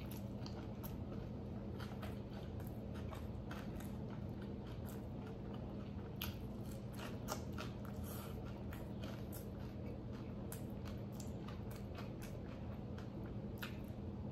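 Close-up chewing and biting of crunchy fried food, with irregular crisp crackles of the breading or crust, over a steady low hum.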